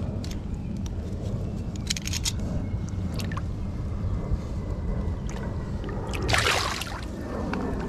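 Water sloshing and splashing at the side of a fishing boat, with scattered small splashes over a steady low rumble, and a louder splash about six and a half seconds in.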